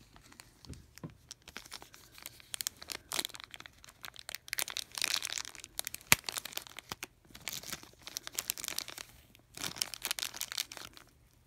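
Thin clear plastic wrapping crinkling and tearing as fingers pick it open and pull it off a small doll accessory, in irregular rustling spurts with a brief pause near the end. One sharp snap about halfway through is the loudest moment.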